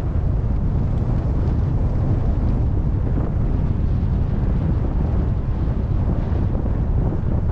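Steady low wind rumble buffeting the microphone while riding along a paved path.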